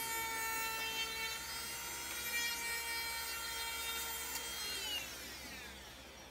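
A power tool's electric motor running with a steady high whine, then released about five seconds in and spinning down, its pitch falling as it fades.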